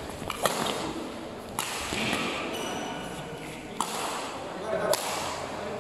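Badminton rackets striking a shuttlecock in a doubles rally: four sharp hits, about a second or two apart, ringing in a large hall. Voices chatter underneath.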